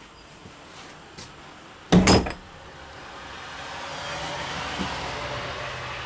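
A loud, sharp double knock about two seconds in, followed by a hiss that slowly swells and then fades.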